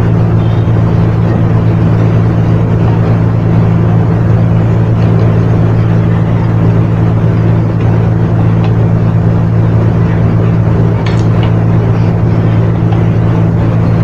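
Steady electric hum from a mains-powered motor: a low drone with a second, higher tone above it, unchanging throughout. A few faint clicks sound late on.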